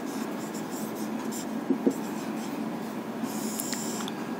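Marker pen writing on a whiteboard: faint strokes with a couple of small taps, and a short, higher scratch of a longer stroke a little over three seconds in as the word is underlined.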